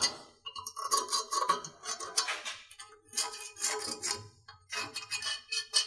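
Pencil scraping on a rusty steel pipe in short strokes as the outline of a weld elbow is traced onto it, with light clinks of the steel parts being handled.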